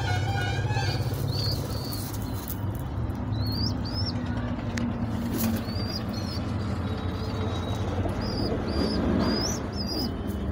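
Birds in a pigeon loft calling: short high chirps, mostly in pairs, repeated every second or two over a steady low hum.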